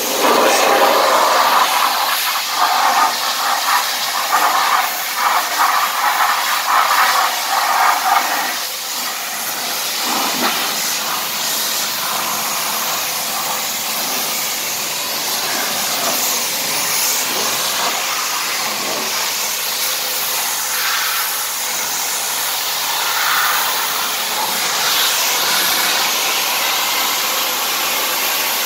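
High-pressure washer jet blasting caked mud off a car: a continuous loud hiss of water spray. For the first eight seconds or so, aimed into the wheel and wheel arch, it is louder and choppier; then it settles into a steadier hiss as it sweeps along the sill.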